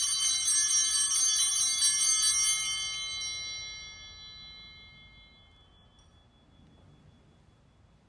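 Altar bells rung at the elevation of the chalice: several quick shaken strikes with bright, high ringing for about three seconds, then the ringing fades out over the next few seconds.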